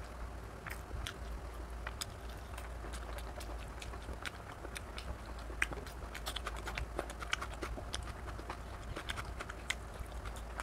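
Close-up chewing and mouth smacks of a person eating rice and mutton curry by hand: many small, irregular clicks and smacks over a low steady hum.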